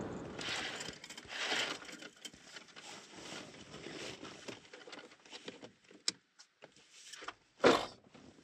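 Rustling of bags and small clattering knocks as things are handled and moved inside a small van cabin, with one sharp knock near the end. A low running hum fades out in the first second.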